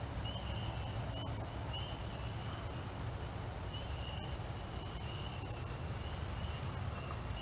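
Outdoor night ambience: a steady low hum with a short, high chirp repeating about every half second to a second, and a brief higher hiss twice.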